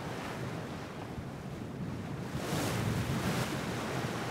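Wind on the microphone and choppy sea splashing around a sailboat in tidal overfalls, louder from about halfway through.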